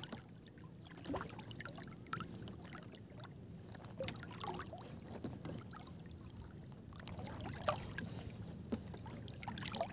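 Shallow seawater lapping and splashing softly around a person wading, faint, with scattered small splashes.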